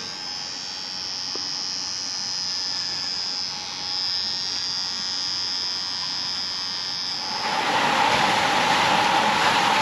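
Small battery-powered hair trimmer buzzing steadily with a high whine as it trims hair on the neck and shoulder. About seven seconds in, the buzz cuts off and a louder steady rush of a waterfall spilling into a pool takes over.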